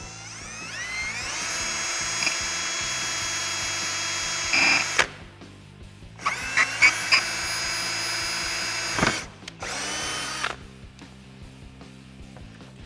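Cordless drill spinning up with a rising whine, then running steadily as its bit cuts through the plastic underside of a front bumper. It stops and starts three times: about five seconds, then about three, then a short burst, with sharp louder spikes where the bit bites.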